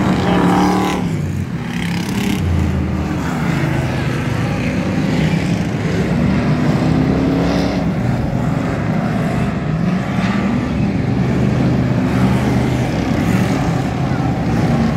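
Engines of a pack of full-size enduro stock cars racing on a dirt oval, several running together and passing by. Their pitch rises and falls as they accelerate and lift.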